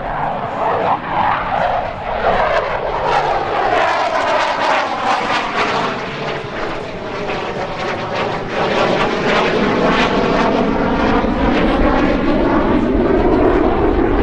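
RCAF CF-18 Hornet's twin F404 turbofan jet engines passing low and slow with landing gear, arresting hook and refuelling probe extended. A loud, steady jet rush with a whooshing tone that sweeps down and then up as the aircraft goes by, growing louder toward the end.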